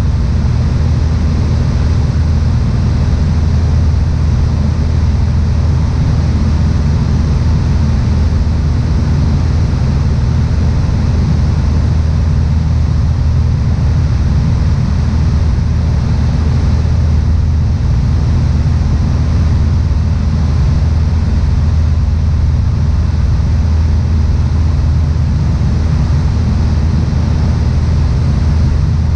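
Steady drone of a Piper Warrior II's four-cylinder Lycoming engine and propeller in cruise, heard from inside the cabin.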